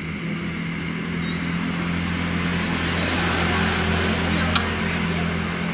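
Small boat engine running steadily, swelling a little in the middle, with one short click about four and a half seconds in.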